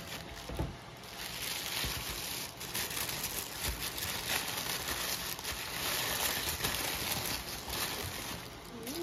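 Tissue paper rustling and crinkling as it is pulled out of a gift bag and unfolded by hand, with a few soft knocks.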